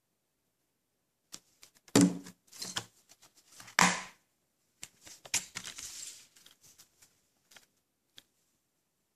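A plastic Blu-ray case handled on a table and snapped open: a run of clicks and knocks, with two heavier knocks about two and four seconds in, then lighter clicking and scratchy rustling as the case opens.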